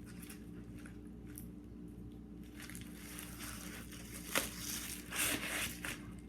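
Clear adhesive tape and plastic packaging being handled and pressed down, with soft crinkling and rustling and one sharp click about four seconds in.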